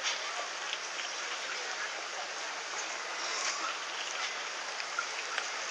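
Steady hiss-like outdoor ambience of a busy park crossing, with faint scattered voices and footsteps from a crowd of people walking.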